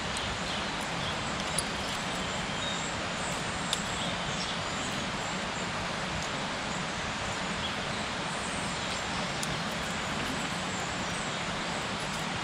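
Steady background rumble and hiss, like distant road traffic, with two faint sharp clicks about one and a half and nearly four seconds in.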